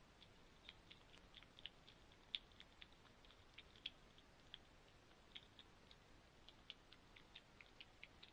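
Faint, irregular clicking: short sharp ticks, several a second at uneven spacing, over near silence.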